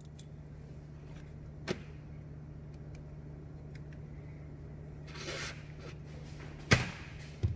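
Metal turbocharger vane-ring parts being handled on a workbench: a few light clicks, then a sharper knock near the end, over a steady low hum.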